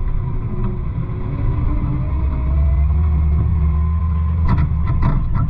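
CAT 908M wheel loader's diesel engine running steadily, heard from inside the cab. A few sharp knocks come near the end as the loader nears a pile of stone.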